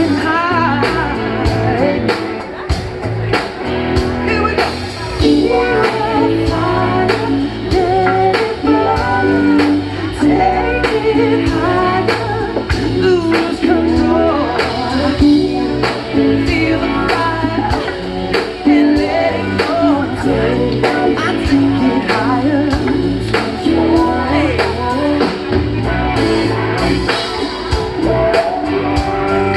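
Live rock band playing at a sound check, a male lead vocal singing over the band with a steady drum beat.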